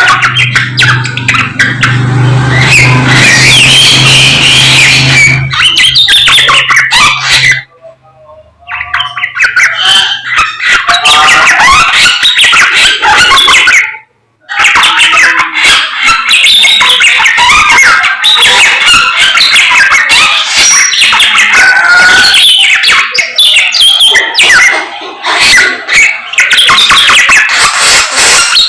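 A samyong songbird singing hard, a dense, continuous run of rapid chirps and twitters, loud and close. The song breaks off twice for a moment. A low steady hum sits under the first few seconds.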